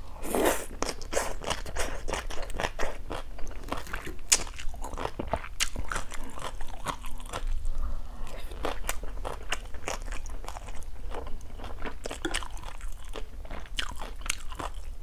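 Close-miked chewing of pickled carrot and pan-fried rice-flour cake with egg (bột chiên): a steady run of crisp crunches and small wet mouth clicks.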